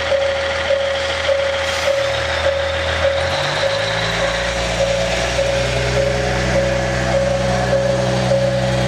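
KiHa 110 series diesel railcar's engine idling, then revving up about three seconds in as the railcar pulls away. A ringing tone pulses about one and a half times a second throughout.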